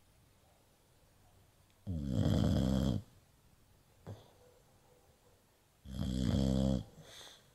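A pet snoring: two loud snores, each about a second long and about four seconds apart, with a short click between them.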